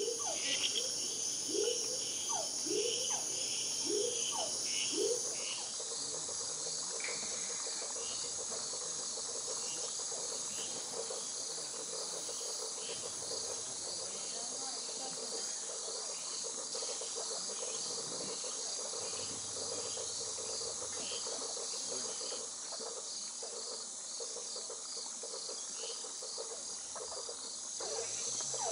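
Night tropical-forest chorus: a steady high-pitched insect trill. Over it, for the first five seconds, a frog gives a series of short rising calls, after which fainter, regularly spaced calls carry on.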